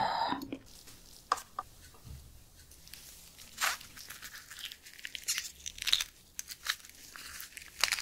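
Gloved hands pulling raw shellfish meat from its shell, with wet tearing, squelching and small clicks scattered through. A short vocal sound comes right at the start.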